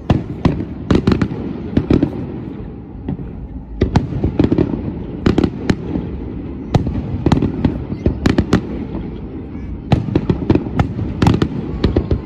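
Aerial firework shells bursting in a display: clusters of loud sharp bangs and crackles in quick succession, with a low rumbling echo between them.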